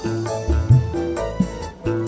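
Background music: plucked strings with a steady drum beat.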